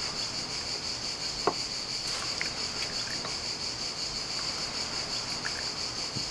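Steady, high-pitched buzzing of a summer insect chorus that goes on without a break. A single sharp tap about a second and a half in, and a few faint clicks soon after.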